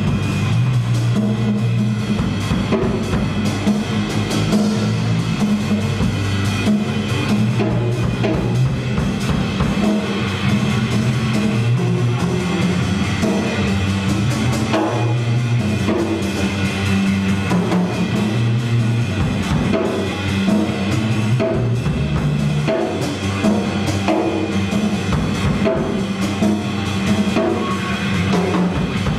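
Live jazz trio playing: electric bass walking through low notes under busy drum kit playing of kick, snare and cymbals, with a tenor saxophone.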